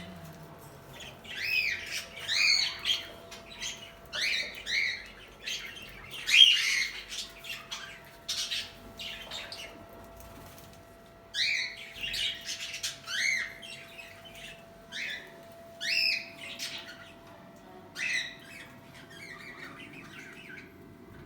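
Budgerigars calling: short, sharp squawking chirps that come in bunches every second or two. The loudest call is about six seconds in, and the calls grow sparser near the end.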